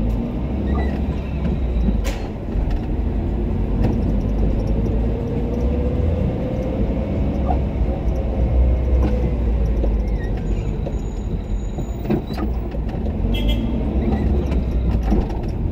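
Car engine and tyre noise heard from inside the cabin while driving at low speed: a steady low rumble with a faint whine that rises and falls gently with speed. There is a sharp click about two seconds in.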